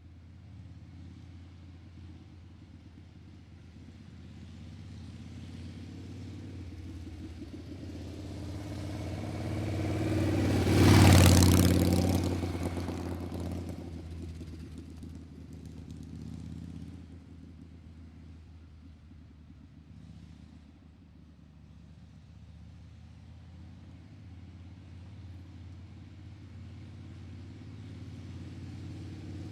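A motor vehicle passing by over a steady low engine hum: its noise swells to a loud peak about eleven seconds in, then fades away.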